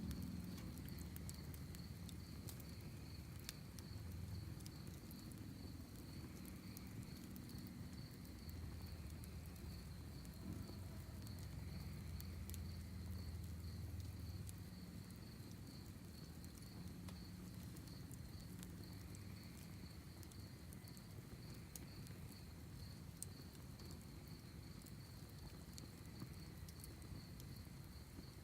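Campfire crackling with scattered small pops, and crickets chirping in a steady, rapidly pulsing high trill over a low rumble.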